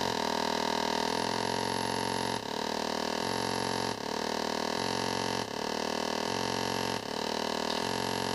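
Olegtron 4060 CMOS oscillator-divider noise box giving a buzzy square-wave drone of several stacked tones. The drone sweeps in a slow repeating cycle, shifting about every one and a half seconds, as the capacitor patched between two divider outputs charges and discharges. The STARVATION pot sets how fast it sweeps.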